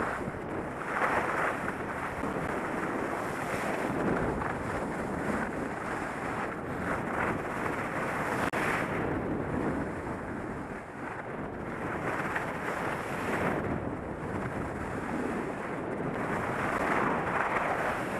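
Wind rushing over the microphone during a ski run, with skis hissing and scraping over snow in surges every second or two.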